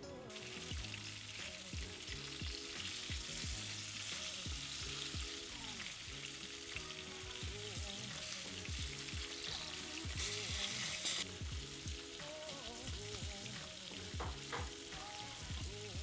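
Corn-flour-breaded red mullet frying in hot vegetable oil in a nonstick pan: steady sizzling throughout, with a spatula moving the fish. The sizzle flares louder for about a second around ten seconds in.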